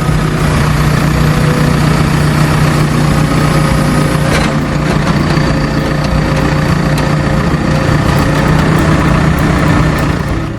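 A heavy vehicle engine running steadily at an even, low pitch, with no revving.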